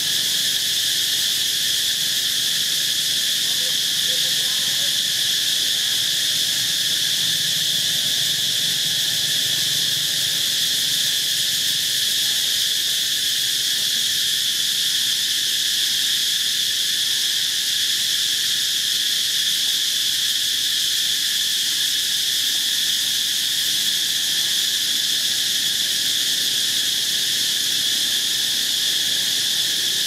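Loud, steady chorus of insects: an unbroken high-pitched buzz that holds the same pitch and level throughout.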